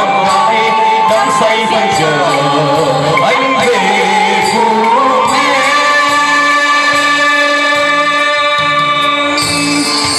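Music: a Vietnamese pop song with singing over band accompaniment, moving into a long held note about five seconds in.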